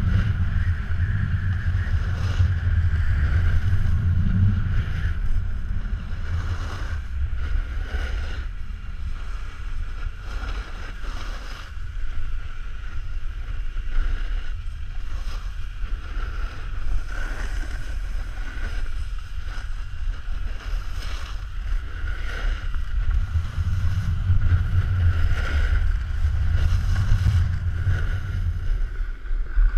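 Snowboard riding down groomed snow: the board scraping over the snow, with wind rumbling on the action camera's microphone, swelling at the start and again near the end.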